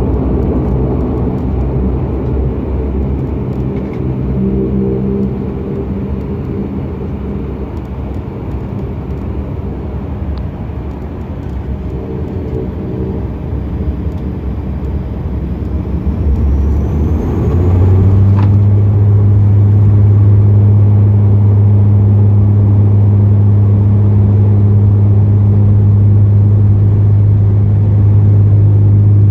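Inside the cabin of a Bombardier Dash 8 Q400, its turboprop engines and propellers run at low power with a rumble and shifting drone. A rising turbine whine then builds, and about two-thirds of the way in the engines come up to a loud, steady propeller drone, typical of power being set for the takeoff run.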